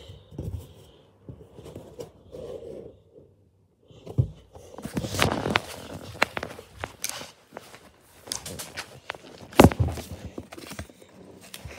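Handling noise on a phone's microphone: hands rubbing and tapping against the phone, a run of rustles and clicks, with one sharp knock late on.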